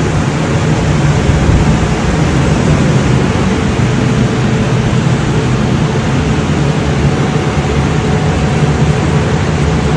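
Spray-painting equipment running steadily: a constant low hum with an even hiss over it.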